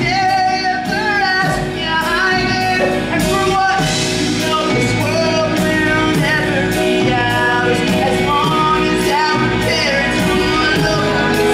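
Live musical-theatre number: singing voices over a band with a steady drumbeat.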